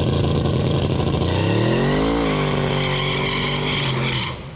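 Turbocharged LS V8 in a square-body Chevy C10 truck at full throttle as it launches off the transmission brake, the rear tires breaking loose and spinning. The engine note glides up and back down about two seconds in, then holds high before cutting off suddenly near the end.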